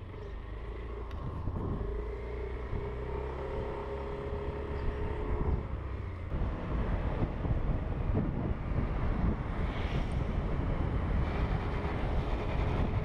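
Yamaha Aerox v2 scooter engine running steadily while being ridden, under a continuous low road-and-wind rumble.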